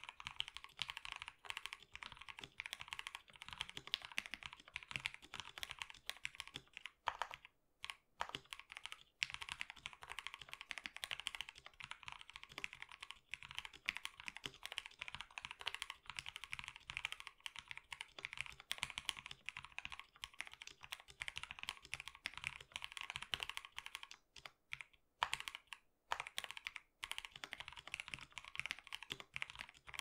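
Fast, continuous typing on a KBD67 Lite R2 mechanical keyboard fitted with lubed Cherry MX Black linear switches and PBT Cherry-profile keycaps: a dense clatter of key presses and bottom-outs, with a few brief pauses.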